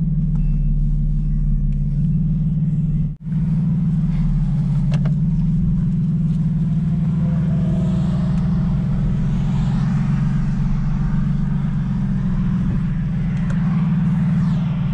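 Lexus IS300's 2JZ-GE inline-six and exhaust making a steady low drone, heard from inside the cabin while driving. There is a momentary cutout about three seconds in, and more road noise comes in during the second half as the car picks up the road.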